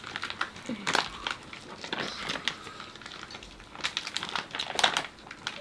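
Crinkling and rustling with scattered light clicks: disposable plastic gloves handling food while fresh rice paper rolls are wrapped.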